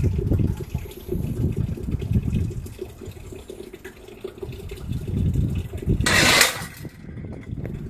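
Wind buffeting the microphone in uneven gusts, with a short loud hissing rush about six seconds in.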